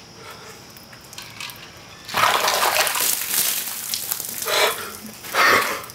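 A bucket of ice water dumped over a person's head, a loud splashing gush starting about two seconds in and lasting about two seconds, followed by two shorter bursts near the end.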